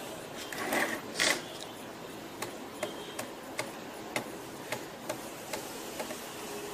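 Small hard parts of a laptop being handled and worked apart: scattered light clicks and ticks, with two louder scrapes about a second in.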